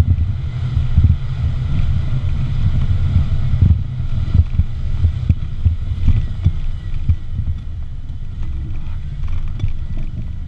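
A doorless off-road vehicle driving slowly over a rough dirt trail: a steady low engine and drivetrain rumble, with wind buffeting the microphone and irregular thumps as the vehicle jolts over the ground.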